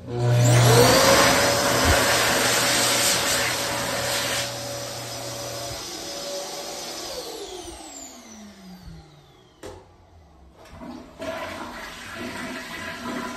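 Airforce wall-mounted electric hand dryer blowing: it starts suddenly and loud, its motor whine rising and then holding steady, then cuts out about six seconds in and winds down with a falling whine. A toilet flushes near the end.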